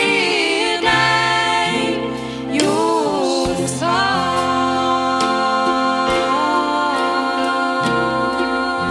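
A Christian song sung in Norwegian over instrumental backing with a steady bass line. The voice moves through a short run of notes about three seconds in, then holds one long note over a sustained chord.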